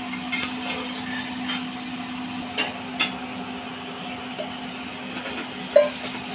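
Metal kitchen utensils clinking and tapping several times over a steady low hum, with one sharper ringing clink near the end.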